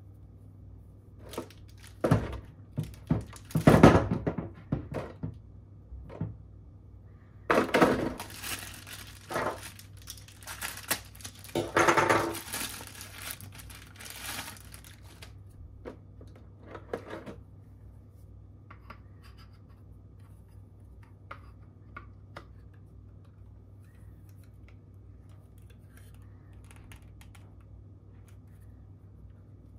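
Clear plastic packaging crinkling and rustling in bursts as it is handled and opened, with a few light knocks. After about fifteen seconds it dies down to occasional soft taps.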